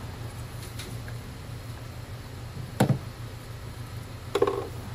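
Two knocks about a second and a half apart, the second with a short ring, from hand tools and parts being handled during valve cover removal, over a steady low hum.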